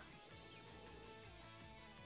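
Near silence with faint background music: soft plucked guitar notes.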